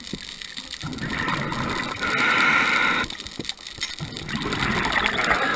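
Scuba diver breathing through a regulator underwater. Hissing inhalations, one in the middle and another near the end, alternate with rougher exhalation noise.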